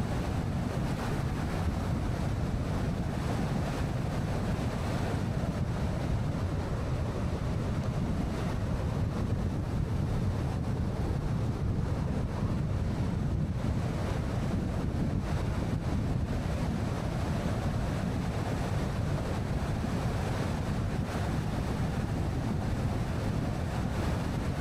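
Steady wind and road noise of a car driving at speed, a low rumble with wind buffeting the microphone.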